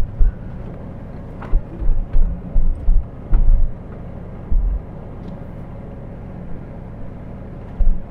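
A vehicle driving along a bumpy unpaved road, heard from inside the cab: a steady low engine and road rumble, with irregular heavier thumps and knocks as the tyres and suspension take the bumps.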